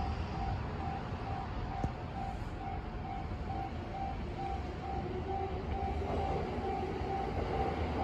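Level crossing warning bell ringing in an even repeat, about three strokes a second, as a JR East E231 series electric train approaches. The train's running noise grows in the last few seconds.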